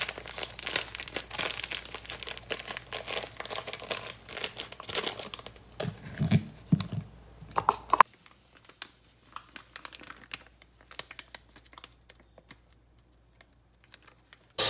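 Plastic bag crinkling steadily as it is worked open by hand, then fainter rustling and crackling as the powdered mix is poured out of the bag into a plastic bowl. The crinkling is loud for about the first eight seconds, then drops off.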